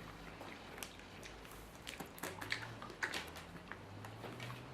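Faint chewing of a mouthful of chocolate, heard as scattered small clicks and squishy mouth sounds.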